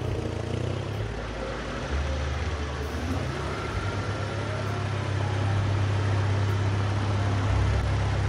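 Small hatchback's engine running at low revs as the car edges slowly into a very tight garage. Its low hum shifts in pitch a few times.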